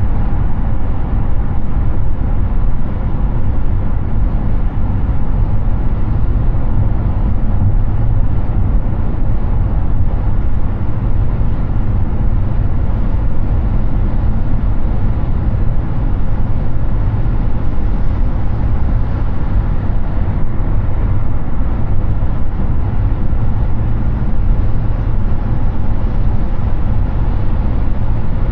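Steady highway driving noise from a Hyundai Ioniq 6 electric car cruising: a continuous low rumble of tyres on the road mixed with wind rush.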